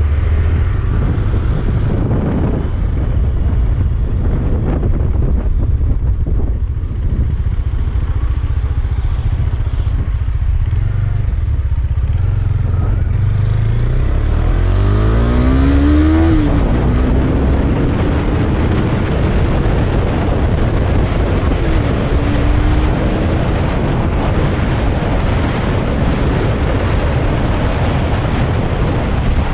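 KTM Duke 250's single-cylinder engine running under way, heard over heavy wind rumble on the camera microphone. About halfway through the engine revs up in a rising note, drops back, and a louder rush of wind noise follows as the bike gathers speed.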